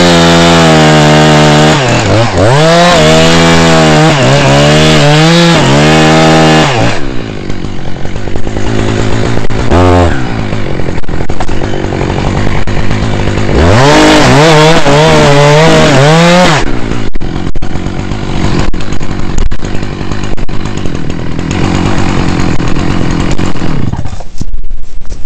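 Two-stroke chainsaw cutting through a poplar trunk at full throttle, its pitch dipping again and again as the chain bites into the wood. It drops back to idle for several seconds with a brief blip of the throttle, then cuts again for about three seconds before settling back to idle.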